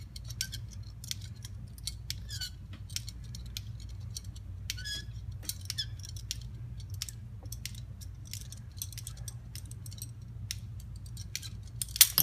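Hand tube cutter being turned around a thin metal tube, clicking and scraping in a string of irregular ticks, over a steady low hum. A few louder metal clacks come near the end.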